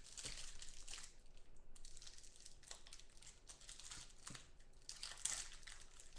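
Crinkling and rustling of a trading-card pack wrapper being opened and cards being handled, with scattered light clicks and a louder crinkle about five seconds in.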